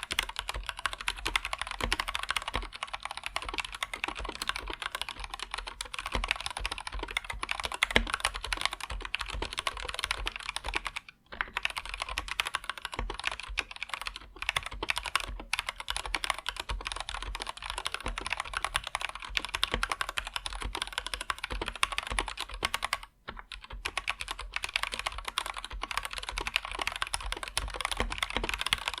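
Anne Pro 2 mechanical keyboard with Gateron Red linear switches, typed on fast and continuously in a dense patter of key clicks, with two short pauses.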